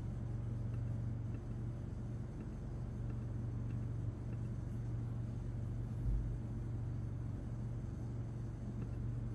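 Room tone between narration: a steady low hum over faint background noise, with a brief low thump about six seconds in.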